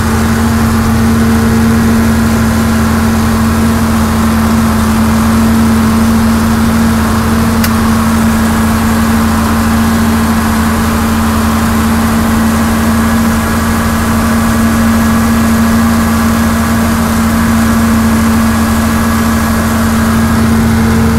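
John Deere 4430's six-cylinder turbo diesel running steadily under load, a constant drone heard from inside the tractor cab while it pulls a sprayer across the field.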